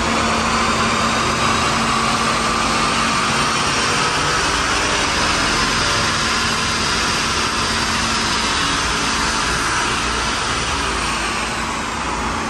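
Interceptor police car's engine running hard at full throttle on a chassis dynamometer during a power pull, with the rollers spinning. It eases off near the end.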